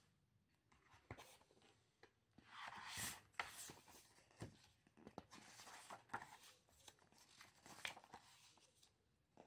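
Faint rustles and swishes as the paper pages of a paperback picture book are opened and turned by hand, with light taps and clicks between them and a louder swish about three seconds in.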